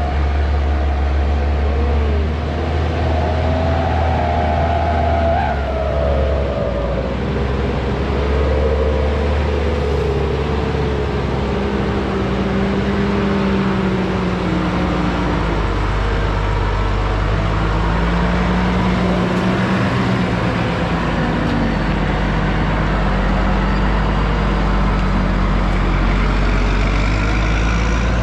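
Isuzu Deca 320 sugarcane truck's diesel engine roaring under load as it hauls a full trailer uphill, its note shifting up and down as engine speed changes.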